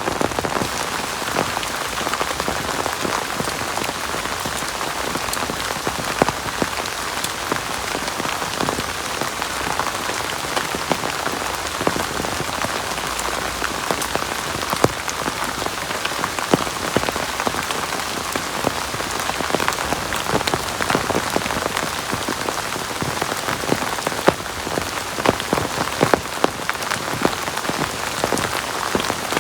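Heavy rain falling steadily, with many sharp individual drop impacts heard throughout.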